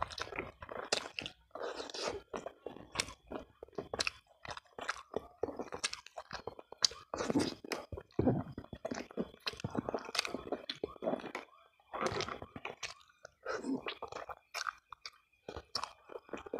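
A person chewing mouthfuls of soft whole-cooked chicken (ayam ingkung), with many irregular wet smacks and clicks of the mouth.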